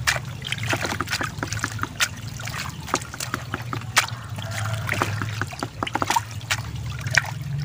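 Water dripping and trickling through a perforated plastic basket of giant gourami fry into a basin, with many small, irregular wet ticks and splashes. A steady low hum runs underneath.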